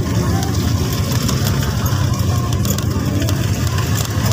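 Car engine and road noise as a steady low drone, heard from inside a vehicle in slow traffic.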